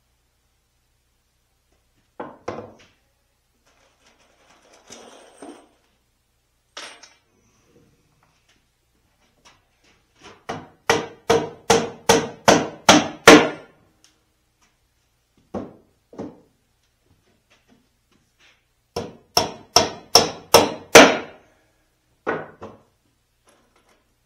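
Hammer driving nails into solid oak boards: a run of about eight blows at two to three a second about halfway through, then another run of about six near the end, with a few lighter knocks in between.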